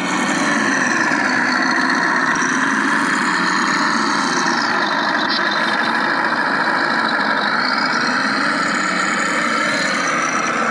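Radio-controlled model vehicle running: a steady engine-like sound, with a faint high whine that falls and then rises again in pitch midway.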